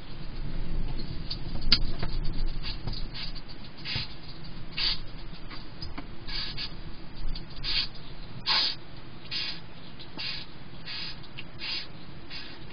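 Hedgehog eating from a dish, chewing and crunching its food, with short crisp crunches coming irregularly about once a second.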